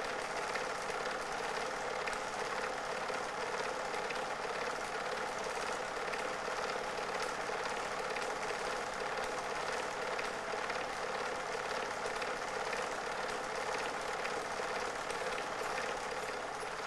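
Super 8 film projector running: a steady mechanical whirr with a fast, even clatter from the film transport.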